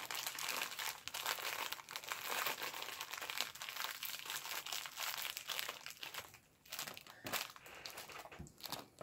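Crinkling of a Twinkie's plastic wrapper as it is peeled open and pulled off the cake: dense crackling for most of the time, thinning to a few sharp crackles near the end as the wrapper is handled and set aside.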